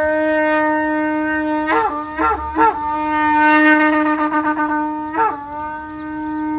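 Long twisted Yemenite-style shofar blown in long, steady blasts on one note, broken by a few quick short notes about two seconds in and a brief break about five seconds in.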